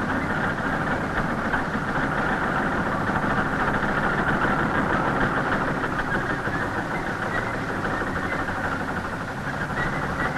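Corn combine running steadily, an engine drone under the dense, even noise of its harvesting machinery.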